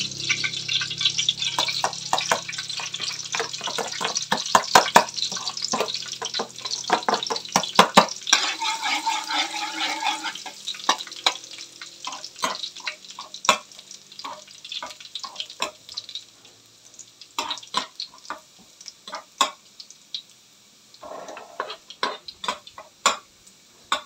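Minced garlic sizzling in oil in a small frying pan on low heat, for a fried-garlic topping, stirred with a slotted metal spatula that clicks and scrapes against the pan. The sizzle is strongest at first and dies down, leaving mostly sparse spatula taps in the second half.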